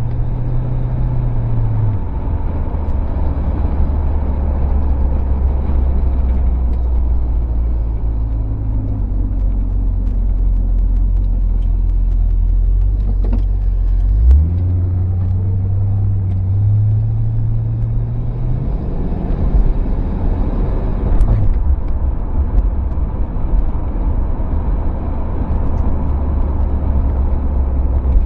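1968 Ford Torino GT's V8 engine heard from inside the open convertible while driving, its note rising under throttle and dropping several times, most sharply about 14 and 21 seconds in, over steady road and wind noise.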